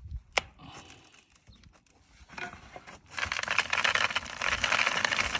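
Barley mixed with feed cubes pouring into a grain storage bin: a sharp click shortly after the start, then a loud, dense rattling hiss of grain that begins about three seconds in and keeps going.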